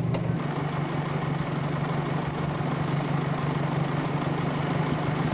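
Railway speeder (track motor car) engine running, a steady low hum that holds even throughout.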